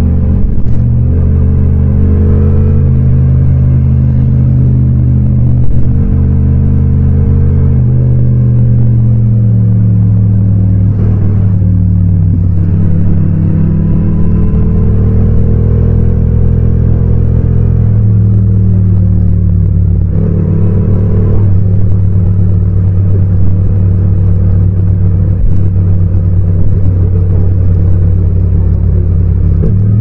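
Motorcycle engine running as the bike is ridden, recorded raw with no wind noise; its pitch steps and glides a few times with throttle and gear changes.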